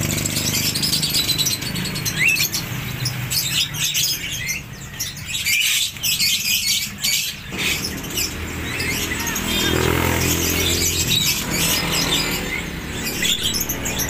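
Many caged birds chirping and calling at once, short sharp high calls coming thick and irregular over a steady low rumble.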